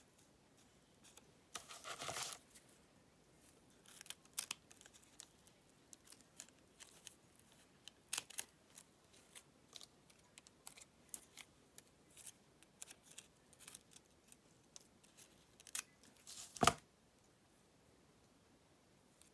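Small scissors snipping fabric in short, irregular cuts, with a brief rustle of fabric about two seconds in. A single sharp click near the end is the loudest sound.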